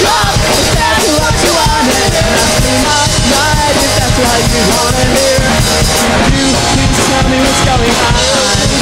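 Punk-rock band playing live, drum kit driving a full-band stretch between sung lines.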